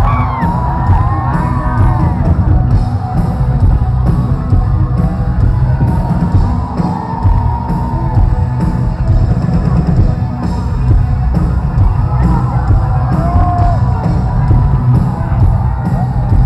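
Loud live concert music heard from within the crowd: a heavy bass-and-drum beat with singing over it, and crowd yells mixed in.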